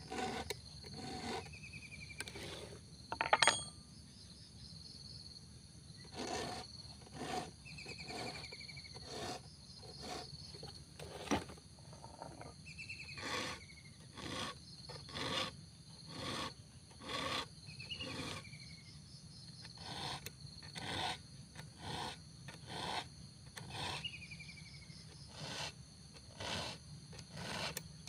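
Round file rasping across a chainsaw chain's cutter teeth in short, even strokes, about one a second, as the chain is sharpened by hand. A steady high insect drone runs underneath, with a short falling chirp every few seconds and one louder click a few seconds in.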